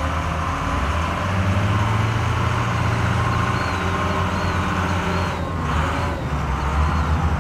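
Steady low drone of heavy diesel engines running, with faint short high chirps repeating about once every second from midway on.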